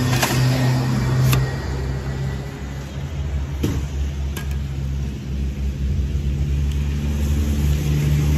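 Steady low drone of an engine running, with a few sharp knocks in the first half.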